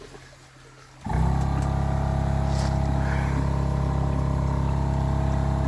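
A 12-volt backup air compressor kicking in after the mains power is cut: about a second of quiet, then it starts suddenly and runs with a loud, steady hum.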